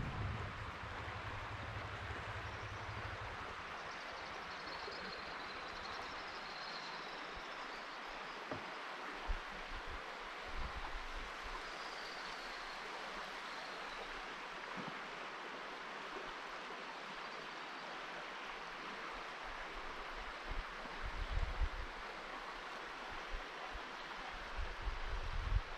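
Steady rushing outdoor noise with occasional low wind bumps on the microphone and a few faint high chirps.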